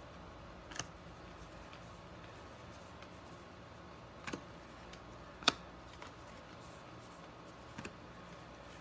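Trading cards being handled and sorted by hand: a few scattered light clicks and taps of card stock, the sharpest a little past halfway and a quick double one near the end, over a steady low hiss.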